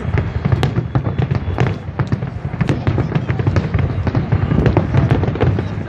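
Fireworks going off in rapid succession: a dense run of crackles and bangs, several a second, over a continuous low rumble of booms.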